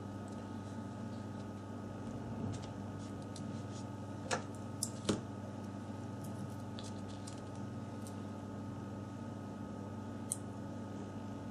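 A few sharp small clicks and taps from handling the phone's parts during disassembly, three close together about four to five seconds in and one more near the end, over a steady electrical hum.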